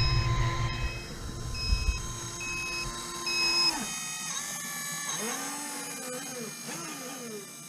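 Electronic reversing beeps repeating a little faster than once a second, with a low motor rumble that dies away about two seconds in. After about four seconds come rising and falling electronic whines, the kind a toy or RC truck's sound unit makes.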